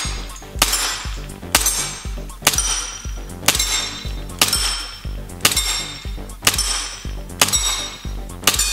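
Background music with a steady beat: a sharp, ringing hit about once a second over a steady bass.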